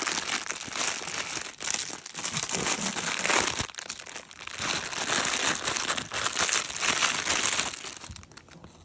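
Clear plastic packaging crinkling as hands handle it and work it open, a dense run of crackles that dies down near the end.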